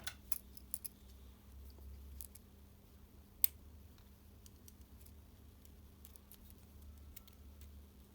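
Scattered small clicks and taps of tools and small parts being handled during a work-light switch repair, a few close together at the start and one sharp click about three and a half seconds in.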